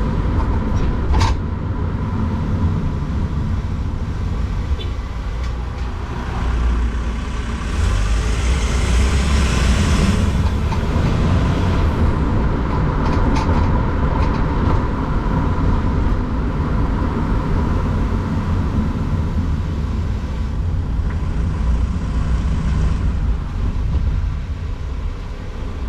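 VW T6 van running: a steady low rumble with a thin, steady whine running through it, and a single click about a second in. This is the annoying noise whose source the owner cannot find; two service centres found the bearings and suspension fine.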